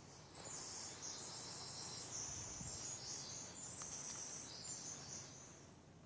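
A faint, high-pitched rapid trill lasting about five seconds, stepping up and down in pitch from section to section, from a small animal in the woods.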